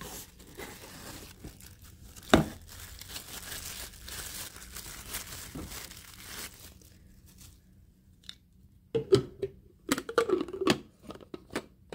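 Clear plastic packaging bag crinkling and tearing as a blender bottle lid is pulled out of it, with one sharp snap about two seconds in. Near the end comes a run of sharp plastic knocks and clicks as the lid is handled and fitted onto the plastic bottle.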